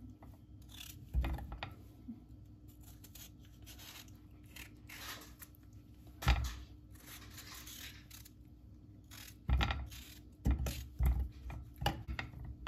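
Knife cutting potatoes into long pieces: irregular knocks as the blade goes through and strikes the surface below, with soft scraping and handling sounds in between. The knocks come quicker in the last few seconds.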